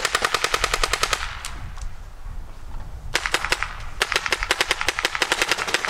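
Paintball markers firing in rapid strings, about ten shots a second, with a pause of about two seconds a second in before the rapid firing resumes.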